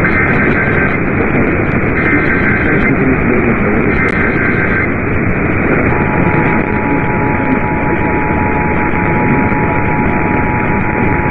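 Emergency Alert System SAME header: three one-second bursts of warbling data tones about a second apart. About six seconds in, the steady two-tone EAS attention signal (853 and 960 Hz) begins. All of it sits under heavy radio static.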